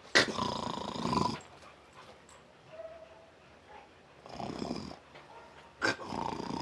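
Dogs growling and snarling in short outbursts of about a second each: one right at the start, a weaker one a little after the middle, and another near the end.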